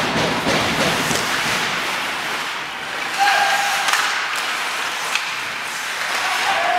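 Ice hockey play heard from the stands: skates scraping on the ice, with a few sharp clacks of sticks and puck and a couple of brief shouts.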